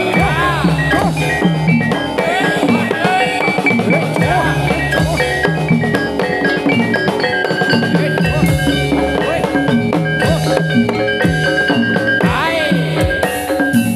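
Javanese gamelan ensemble playing live: ringing bronze metallophones over a steady, regular drum beat, with some pitched lines bending up and down above them.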